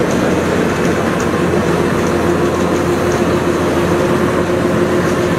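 Kubota DC93 rice combine harvester running steadily while cutting and threshing, a continuous machine drone with one steady hum held through it.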